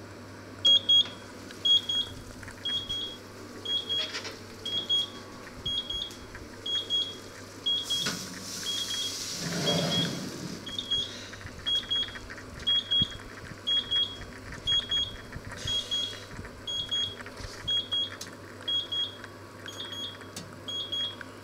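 Electric oven's timer alarm beeping after counting down to zero: short high beeps in pairs, about once a second. About halfway through, a rustle and low thud as the oven door is opened.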